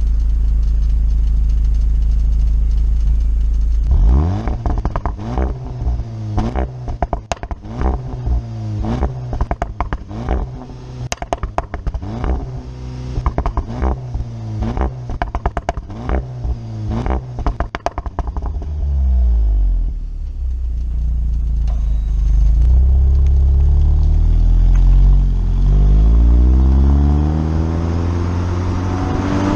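Seat Leon Cupra 300's turbocharged 2.0-litre four-cylinder, heard right at the stock exhaust tip with no particulate filter, in Cupra mode: idling, then blipped through a rapid series of revs with pops and crackles on the overrun between them. In the last third it pulls away, the note rising as the car accelerates.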